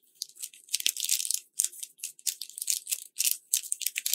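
Clear plastic packaging bag crinkling and rustling in the hands as it is handled, in quick, irregular bursts, loudest about a second in and near the end.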